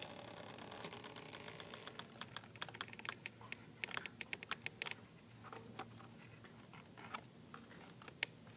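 Faint clicking and crackling of a cardboard pop-up book being opened and its stand-up pieces unfolding. There is a quick run of small clicks in the middle, then a few single clicks, the last one the loudest.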